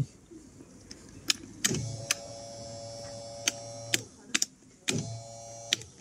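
Rocker switches on a 12 V boat switch panel clicking on and off, switching a small 12 V pump motor that hums steadily for about two seconds, stops, then runs again briefly near the end.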